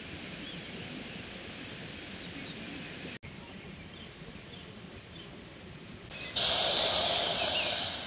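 Water poured from a plastic bottle into an empty aluminium cooking pot, starting suddenly about six seconds in, loud at first and fading as the pot fills. Before it, a steady outdoor background.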